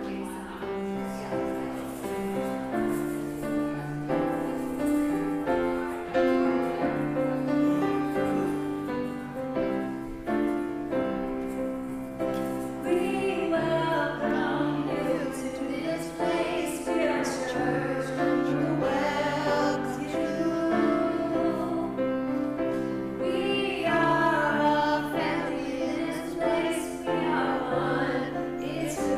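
Church music: held keyboard chords, with choir singing joining about halfway through.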